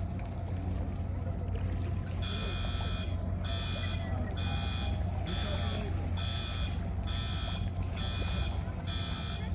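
Electronic warning alarm of the Nine O'Clock Gun starting about two seconds in and beeping roughly once a second, each beep a steady multi-pitched tone: the signal that the cannon is about to fire. A steady low rumble runs underneath.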